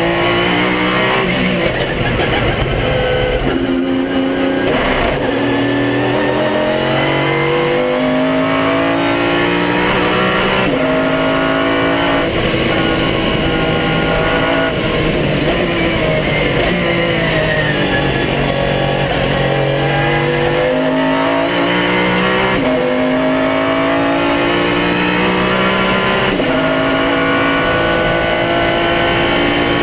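Pagani Zonda R's 6.0-litre V12 at full throttle, heard from inside the cockpit, revving hard through the gears. The pitch climbs and steps down with each shift, and about halfway through it falls away and builds again.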